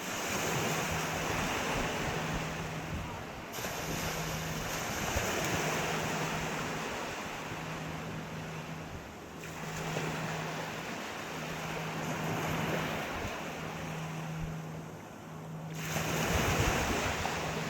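Sea waves breaking and washing ashore in steady surf, the rush swelling and easing with a new surge every few seconds.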